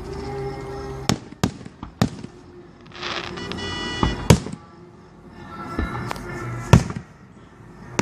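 Fireworks display going off: a string of sharp bangs, with about a second of dense crackling some three seconds in. The loudest bangs come just after four seconds and near seven seconds.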